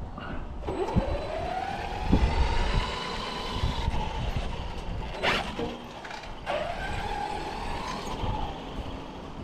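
Electric RC car motor whining up in pitch as the car accelerates on belted Gravik tires, holding near top speed, then dropping away about five seconds in; a second acceleration follows a second later with the same rise and fall. A sharp click sits between the two runs.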